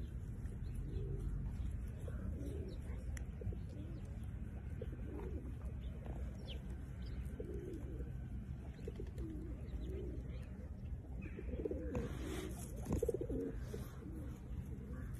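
Puppy making soft, low grumbling calls over and over while it is rubbed and mouths a hand, each call rising and falling in pitch. The calls grow louder and come closer together near the end.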